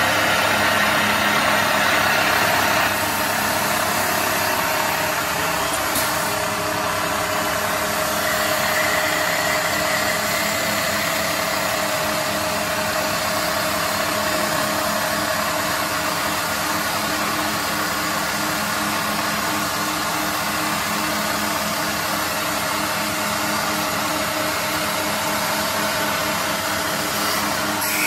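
Small CNC woodturning lathe running its automatic cycle: a steady motor and spindle whine over the noise of the machine at work, slightly louder for the first three seconds.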